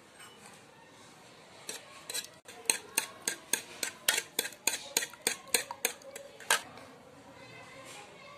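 A metal spoon beating three raw eggs in a bowl, clinking rapidly against the bowl's sides at about four strikes a second for about five seconds.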